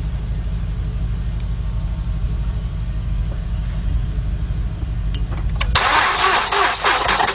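Steady low hum, then about six seconds in the Mazda 6 V6's starter cuts in and cranks the engine loudly with its spark plugs out, for a compression test. The first cylinder shows no compression.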